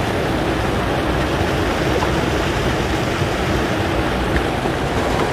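Water pouring over a spillway into a foaming pool: a steady, unbroken rush.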